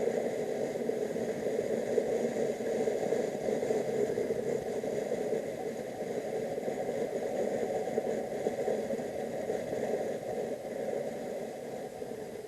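Motorcycle riding along a road: steady engine and road noise mixed with wind rush on the microphone, easing slightly near the end.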